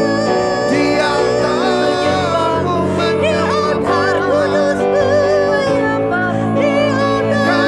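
Worship singers, two women and a man, singing a song in Indonesian together with wavering vibrato, over long held chords on a Yamaha electronic keyboard.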